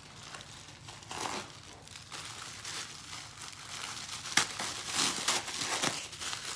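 Crinkly silver wrapping being handled and pulled off a small wrapped parcel by hand, rustling and crinkling throughout, with louder crinkles about four and a half seconds and five seconds in.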